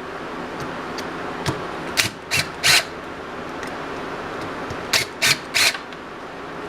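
Parts of a disassembled cheap angle grinder being worked loose and pulled out by hand: two sets of three short scraping rubs, about three seconds apart, over a steady background hum.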